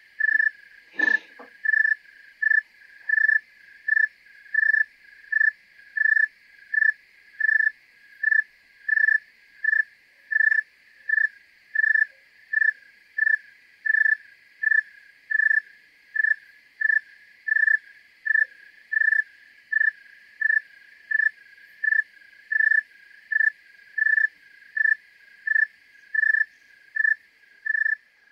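Tree cricket singing: a long, even series of short, clear chirps at one steady pitch, about three every two seconds. The sound is made by rubbing the raised forewings (tegmina) together.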